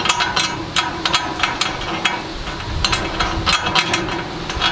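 Steel bolt and nut clicking and rattling against a steel cart frame as they are worked through a bracket hole by hand: a run of irregular small metallic clicks.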